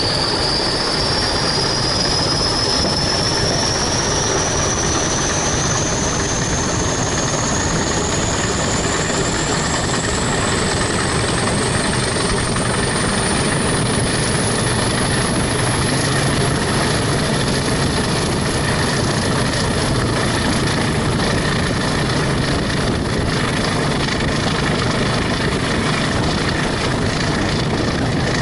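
Pair of English Electric Class 20 diesel locomotives working hard, pulling away under full power, heard from a carriage window. A high turbocharger whistle climbs steadily over the first fifteen seconds or so, then holds, over the continuous run of the engines and the coaches' wheels on the rails.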